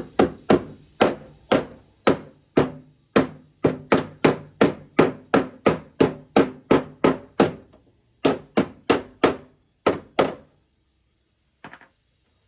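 Body hammer striking the back of a car's fender panel against a dolly held on the face, a steady run of sharp metallic blows about two to three a second, each with a short ring. The hammering pauses briefly near eight seconds in and stops a little after ten seconds, ending with one small knock.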